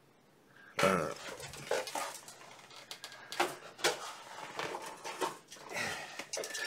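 Near silence, then from about a second in, plastic model-kit sprues clattering and knocking as they are handled and laid on the workbench, with scattered sharp clicks.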